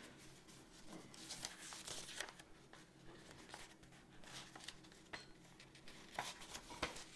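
Soft, intermittent rustling and crinkling of folded paper as a cross-stitch pattern sheet is handled and unfolded.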